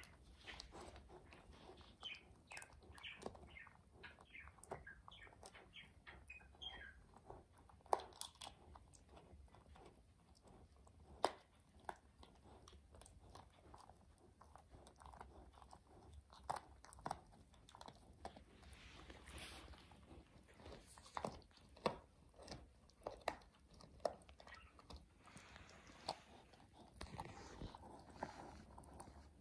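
Beagle gnawing a chew bone: irregular crunching and cracking from its teeth on the bone, with two sharper cracks about a third of the way in.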